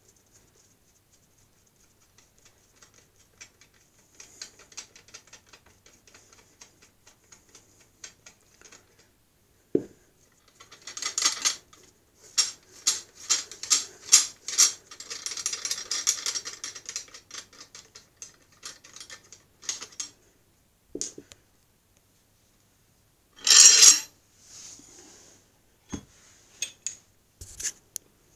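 Metal parts of a homemade steel press with a bottle jack being handled: scattered clicks and clatter, busiest for several seconds in the middle, with a few thumps and a brief loud scrape about two-thirds of the way through.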